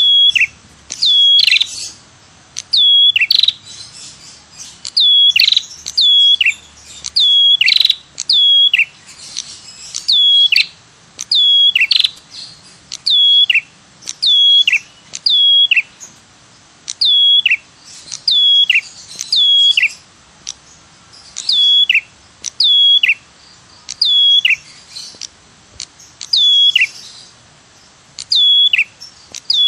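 Ashy tailorbird (prenjak kepala merah) giving its 'tirr tiirrr' call over and over, about one short, sharp, high note a second, each falling steeply in pitch. It is a trapper's lure call (suara pikat).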